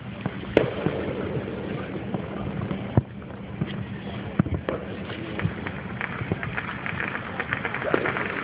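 Fireworks display heard from afar: irregular bangs and a steady crackle, with the sharpest reports about half a second and three seconds in.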